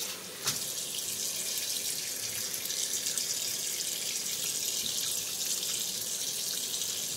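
Kitchen faucet running in a steady stream onto raw pork spare ribs in a stainless steel sink, the water splashing off the meat as gloved hands work it. A short click about half a second in.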